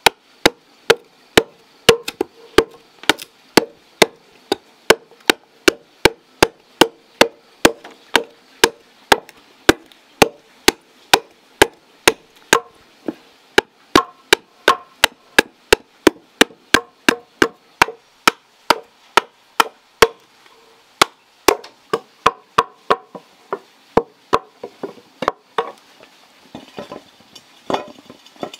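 A hand-held blade chopping around the edge of a thick wooden board to round it into a lid, striking steadily about twice a second, then in slower, irregular blows. Near the end come a few softer knocks and scraping as the wooden lid is set onto an iron pan.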